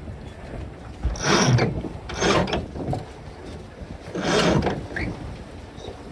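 Sailboat sheet winch ratcheting in three separate bursts as the sheet is hauled in.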